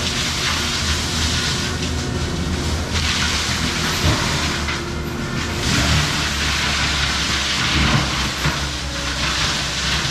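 Kubota SVL95-2S compact track loader's diesel engine running under load while its GyroTrac 500HF forestry mulching head spins, with a hissing grind that swells and fades several times as the head works through brush.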